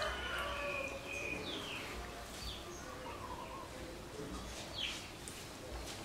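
Several faint, short chirps that fall quickly in pitch, spaced a second or two apart, from a small animal. At the very start, the end of a rooster's crow dies away.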